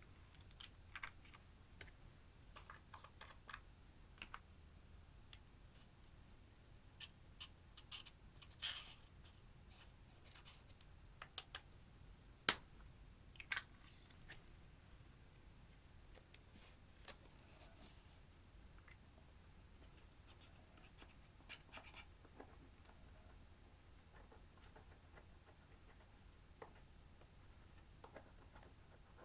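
Clear slime being worked by hand, giving faint, scattered sticky clicks and small pops, with a few sharper clicks around the middle.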